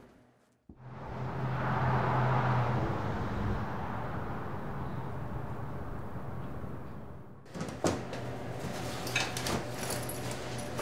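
Outdoor street noise: a steady rush with a low hum that swells, eases off and cuts off abruptly. Then come several light knocks and clicks of objects handled on a table, a book and a metal thermos being picked up.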